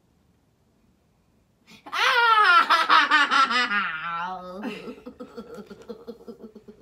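A burst of loud, high-pitched laughter starting about two seconds in, in rapid pulses that fall in pitch, then trailing off into softer rhythmic giggling.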